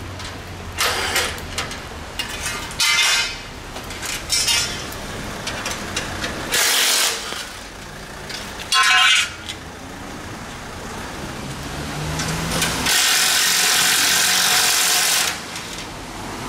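Steel motorcycle shipping crate being knocked apart with a hammer: a series of sharp metal bangs and clanks, one ringing briefly, over steady rain. A steady hiss lasts about two seconds near the end.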